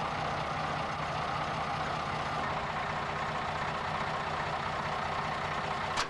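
Engine of fire-brigade equipment running steadily at constant speed. A short sharp click sounds near the end.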